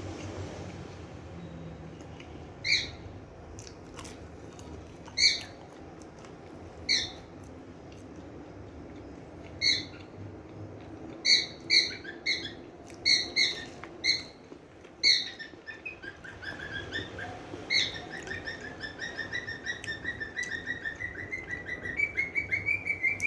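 A small bird chirping: single sharp chirps every second or two, then a little over two-thirds of the way through a fast run of rapid chirps.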